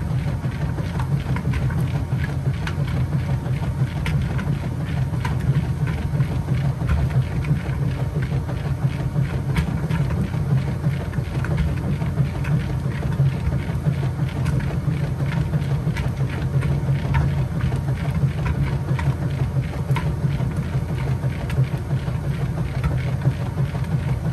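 Kenmore 80 Series top-loading washing machine agitating in its Heavy Duty wash: a steady motor hum with a continual faint ticking.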